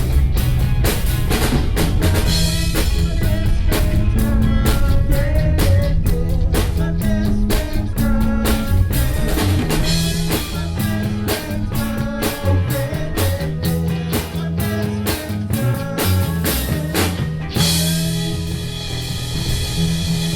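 Live rock band playing an instrumental passage, with drum kit, electric guitar and bass. About seventeen seconds in the drumming stops and a held chord rings on.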